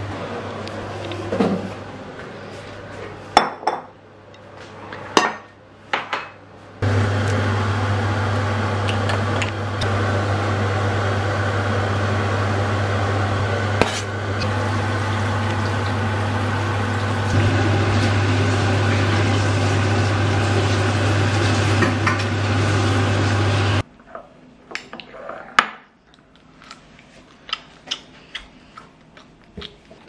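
Scattered knife and dish taps, then a steady electric hum from a kitchen appliance for about seventeen seconds, cutting off abruptly. Sparse clinks of cutlery and bowls near the end.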